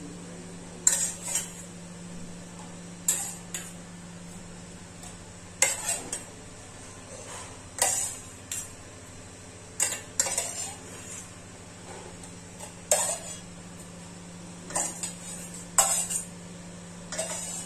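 A metal spoon scraping and clinking in a small stainless steel saucepan as cooked beef skin is scooped out, in short clusters of clinks every two seconds or so.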